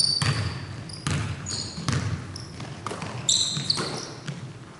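A basketball bouncing irregularly on a hardwood gym floor, with sneakers squeaking sharply during play, the loudest squeaks a little past three seconds in. Each bounce rings on in the big hall.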